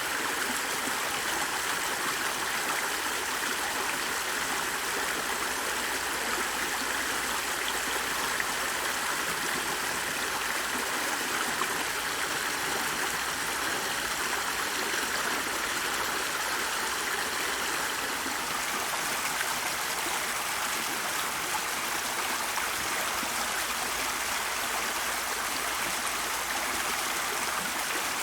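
Steady rushing and burbling of a running stream, even and unbroken throughout.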